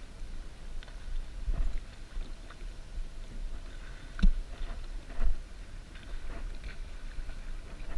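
Small waves slapping and knocking against the plastic hull of a sit-on-top kayak, over a steady low rumble of wind on the microphone. The loudest knocks come a little over four seconds in and about a second later.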